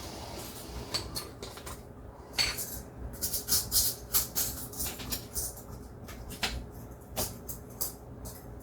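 Small hard parts clicking and rattling as they are handled on a workbench: short, sharp clicks at irregular intervals, a few louder ones around two and a half to four seconds in and again near six and a half and seven seconds.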